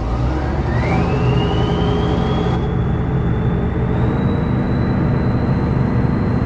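Kirovets K700A's V8 diesel running under PTO drive, turning the slurry tanker's pump dry with no load. Engine speed rises right at the start, and a high whine from the PTO drive climbs in pitch over about two and a half seconds, then holds steady.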